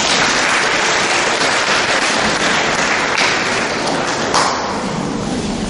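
Audience applauding: dense, steady clapping from a crowd of many hands.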